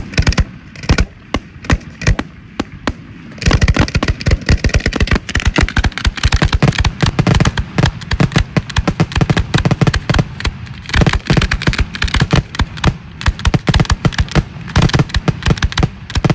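Fireworks going off in rapid succession: spaced-out bangs for the first few seconds, then from about three and a half seconds in a dense, unbroken barrage of many bangs a second.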